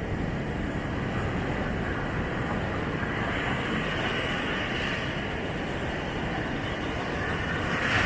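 Rough sea surf on a beach: waves breaking and foam washing up the sand in a continuous rushing noise, over a low rumble of wind. The rush swells about three seconds in, and a nearer wave breaks loudest at the very end.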